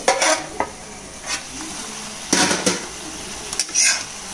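Drumstick and tomato curry sizzling in a pan, with a steel spoon scraping and stirring it in about five quick strokes; the tomatoes have cooked down soft.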